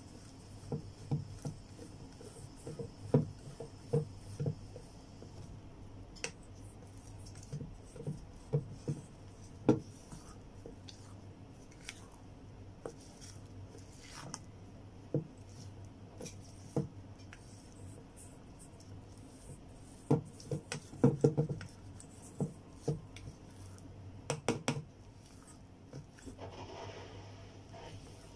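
Spatula stirring thick chocolate batter in a stainless steel bowl: irregular scrapes and light knocks against the metal, coming in clusters, over a low steady hum.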